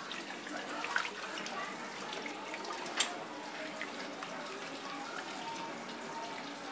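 Water sloshing and splashing in a steel bowl as cut pieces of murrel fish are rubbed and washed by hand, with a few sharp clicks, the loudest about three seconds in.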